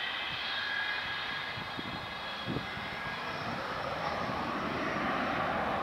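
Avro Vulcan XH558's four Rolls-Royce Olympus turbojets running at low power as the bomber taxis on the runway: a steady jet whine with several high whistling tones over a rushing noise.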